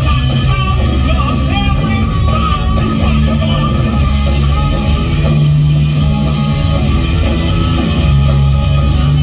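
Punk rock band playing live and loud: electric guitar over held bass notes.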